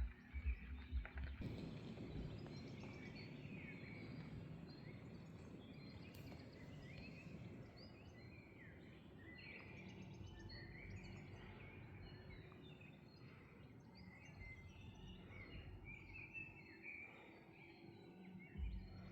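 Many small birds chirping and twittering over a faint, steady outdoor hiss. Low rumbling bumps on the microphone come in the first second or so and again near the end.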